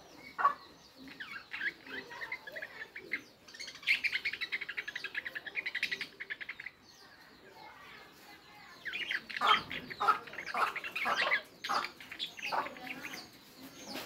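Budgerigars chirping and chattering. Their calls run fast, about ten a second, for a few seconds; louder, sharper calls follow after a short lull.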